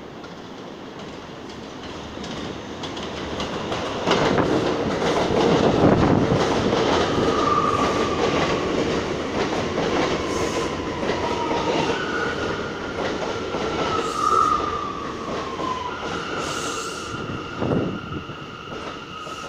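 An R179 subway train pulls into the station. The rumble of its wheels on the rails builds to its loudest about four to six seconds in, then gives way to short wheel squeals and slowly falling whines as it slows. There is a short clunk near the end.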